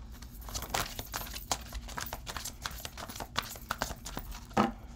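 Tarot cards being handled and laid on a cloth-covered table: an irregular run of light taps and clicks, with a louder knock just before the end.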